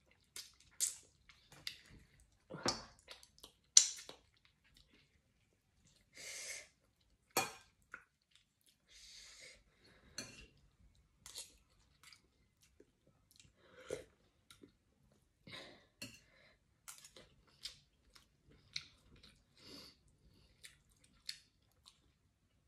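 Close-up eating sounds of someone working through chicken soup and rice: chewing and wet mouth noises, with short sucking sounds. Sharp clinks of a metal spoon against the wok and plate come now and then and are the loudest sounds.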